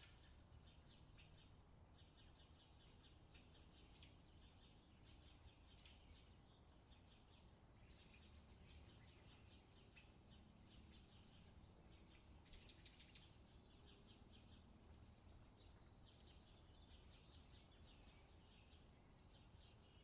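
Faint rural summer outdoor ambience: small birds chirping in quick repeated series, with a slightly louder flurry of chirps about twelve seconds in, over a low steady background rumble.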